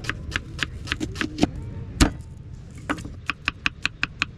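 Kitchen knife chopping on a cutting board in quick, even strokes, about five or six a second, with one louder knock about two seconds in.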